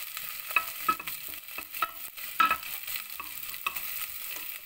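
Sliced onions sizzling in hot oil in a stainless steel pot, with a wooden spoon stirring them and scraping and knocking against the pot, the loudest knock about two and a half seconds in.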